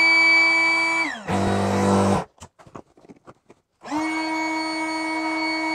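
Electric inflatable-boat pump running with a steady whine while inflating the boat's chambers to 250 millibar. About a second in it winds down and stops, and a short loud rush of noise follows. After a pause of about a second and a half with a few faint clicks, the pump starts up again and runs steadily.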